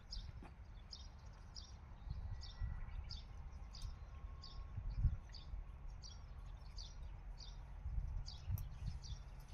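Wind gusting on the microphone as a low rumble, with a small bird repeating a short high chirp over and over, about every two-thirds of a second.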